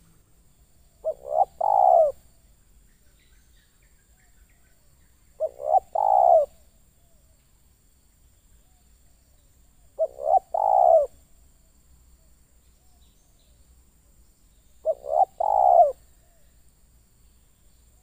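Spotted dove cooing: four calls spaced about four and a half seconds apart, each two short notes followed by a longer, falling coo.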